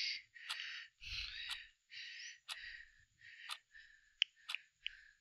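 A man's breathing: a run of short, breathy puffs about half a second apart that fade over a few seconds, with faint mouth clicks between them.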